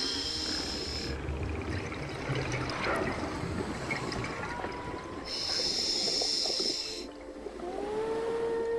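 Scuba diver breathing through a regulator underwater: a hissing inhale at the start and again about five seconds in, with exhaled bubbles rumbling low in between. A steady pitched tone begins near the end.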